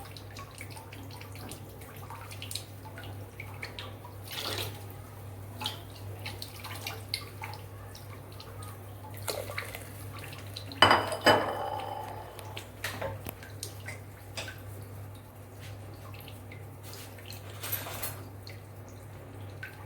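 Scattered clinks and scrapes of a utensil against a cooking pot, with one louder metallic clatter that rings briefly about eleven seconds in, over a steady low hum.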